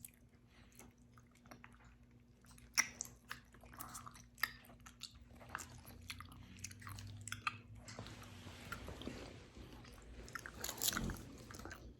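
Quiet chewing and small wet mouth clicks close to the microphone from someone drinking milk tea and chewing its toppings.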